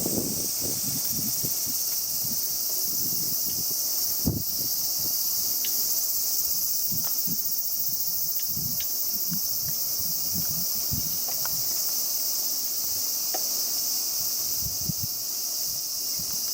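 Steady, high shrill chorus of insects singing in the trees, with irregular low rumbles and bumps underneath.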